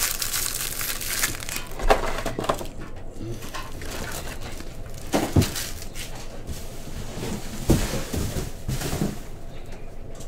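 Packaging being crinkled and rustled close to the microphone, with three sharper knocks about two, five and eight seconds in.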